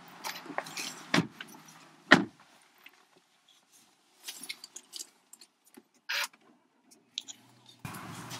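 Someone getting into a Volkswagen Sharan's driver's seat: a few small clicks, then the car door shutting with a loud thud about two seconds in. Quiet handling noises and a brief tone follow, and a steady outdoor background comes in abruptly near the end.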